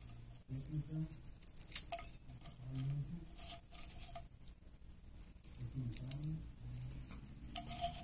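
Burnt, charred cheese puffs being handled and crumbled by hand on a clay plate, with a handful of short, sharp, scratchy crackles. Near the end a lighter is struck and lights.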